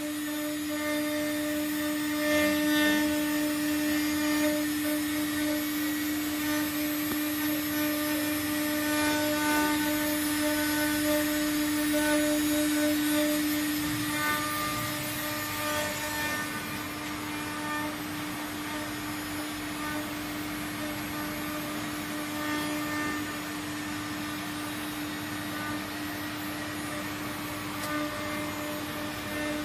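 CNC engraving machine running: the spindle gives a steady high hum while the cutter works a board, with a rougher cutting noise over it. The cutting noise is louder in the first half and eases after about 16 seconds, leaving mostly the steady spindle hum.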